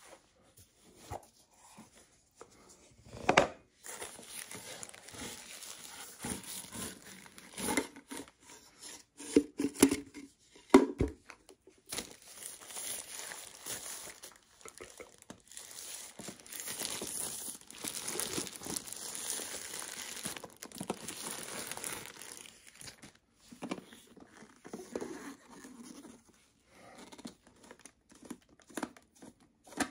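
Packaging of a portable juicer blender being torn open and crinkled during unboxing, a long run of rustling, with a few sharp knocks as the box and plastic parts are handled, the loudest about three and eleven seconds in.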